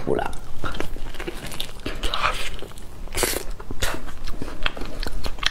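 Close-miked chewing of soft, creamy durian flesh: wet mouth sounds with a quick string of sharp lip smacks and clicks.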